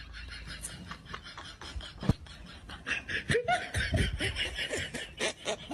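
Laughter in quick repeated bursts, louder in the second half, with a single sharp knock about two seconds in.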